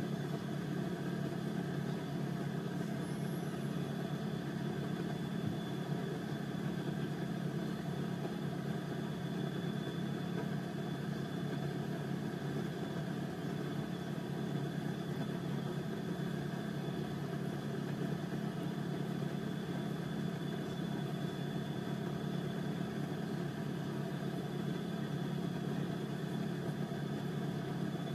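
Steady low machine hum, like a running motor, with a faint thin high tone above it; it stays the same throughout.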